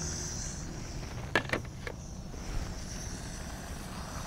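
Glass cooking-pot lid lifted off the pan, with a few light clinks about a second and a half in, over a steady low rumble and crickets chirping.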